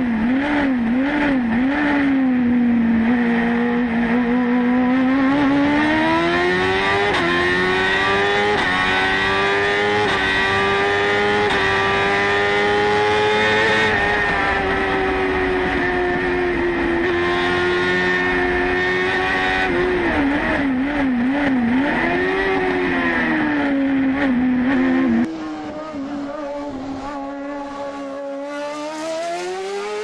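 BMW S1000RR inline-four motorcycle engine in a Fiat 500 hillclimb prototype, heard from inside the cockpit. It revs very high, its note climbing and falling as it shifts through the gears and slows for bends. About three-quarters of the way through, the sound suddenly drops in level and is heard from the roadside, the engine note rising as the car pulls away up the hill.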